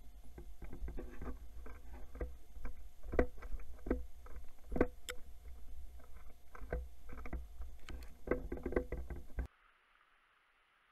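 Irregular clicks and knocks of gear being handled close to the microphone, over a low rumble, cutting off suddenly near the end to faint hiss.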